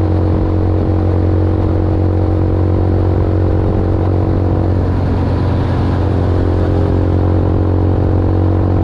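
Small city motorbike's engine running at a steady cruising speed, with an even, unchanging note.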